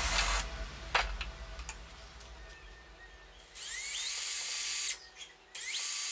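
Cordless drill boring holes through MDF. It runs briefly at the start, then runs again twice, at about three and a half and five and a half seconds in, each time spinning up with a rising whine.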